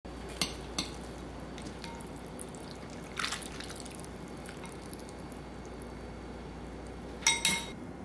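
Drained ramen noodles dripping and the light clicks of wooden chopsticks against a mesh strainer and ceramic bowl, as the noodles are laid into cold soup. There are two clicks near the start, a brief soft splash about three seconds in, and two more clicks near the end, over a low steady hum.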